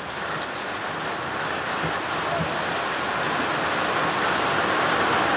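Heavy rain mixed with a little hail pouring down, growing steadily louder as the downpour sets in.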